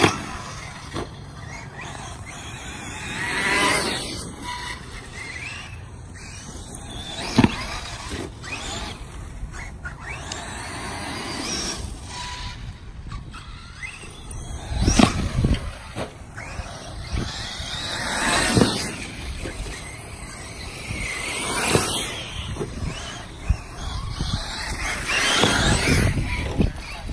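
Electric 1/8-scale RC truggies (TLR 8IGHT-T 3.0E and Team Associated RC8T3.1e) with 1900kv brushless motors whining as they speed up and slow down in repeated passes, rising and falling in pitch. Tyres rush over grass and concrete, with a few sharp knocks.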